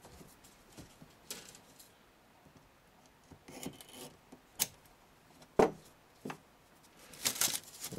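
Model-railway track being handled and pinned down onto cork: soft rustling and a few sharp clicks, the loudest about five and a half seconds in, as track pins are pushed in with a pin pusher.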